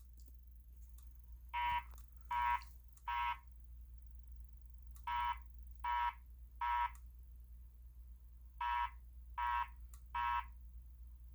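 Fire alarm speaker sounding the temporal-3 evacuation tone from a Wheelock SP40S SafePath voice panel: three short beeps, a pause, then the pattern repeats, three groups in all. This is the alert tone that comes before the recorded evacuation message.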